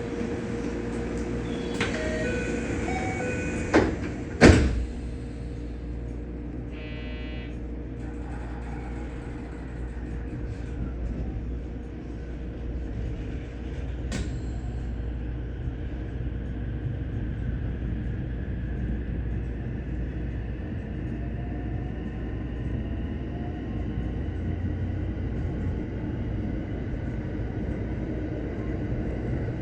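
Door chime of a JR West 225 series electric train, a few short low-pitched tones, then the sliding doors shutting with two loud knocks about four seconds in. A steady running rumble follows, with faint slowly rising tones in the second half.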